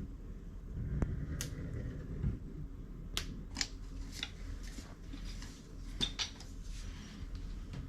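Hand work at a door: a string of small irregular clicks and taps with brief scraping and rubbing strokes, over a low steady hum.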